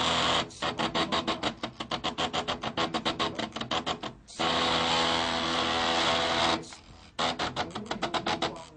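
Small stepper motors from DVD/CD drives driving an Arduino mini CNC: a fast train of short stuttering steps, a steady whine for about two seconds in the middle during a longer continuous move, then more short steps.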